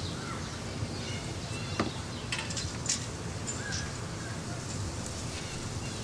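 Outdoor ambience: birds chirping in short calls and small rising and falling whistles over a steady low rumble, with two sharp clicks about two and three seconds in.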